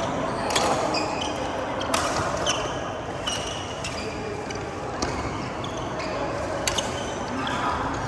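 Badminton rally: a racket strikes the shuttlecock four times, with sneakers squeaking on the court floor between the shots.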